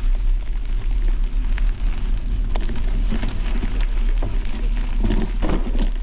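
Wind buffeting the microphone while riding a bicycle over a rough jungle track, the bike clicking and rattling over the bumps, with a louder clatter near the end.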